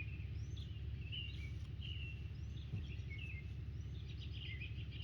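Songbirds singing: a string of short whistled chirps and phrases, with a quick trill near the end, over a steady low rumble of outdoor background noise.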